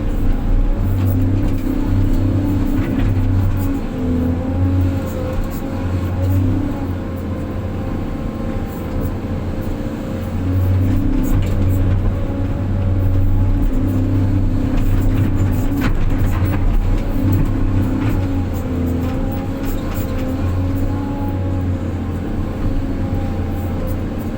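Heavy diesel engine running continuously, its note swelling and easing every second or two as the load changes.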